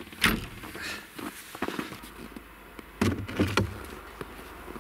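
Metal cab door of a Hitachi ZW40 wheel loader shutting with a sharp clunk, a few light knocks, then a cluster of clunks about three seconds in as the rear engine hood's latch is worked and the hood is lifted.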